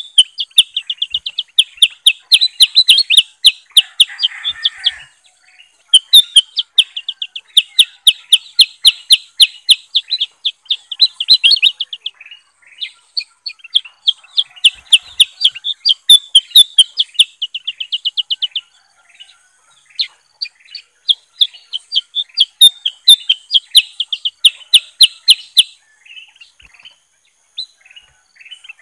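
Caged kutilang (bulbuls) calling in rapid runs of sharp, repeated chirps, several to the second, broken by short pauses.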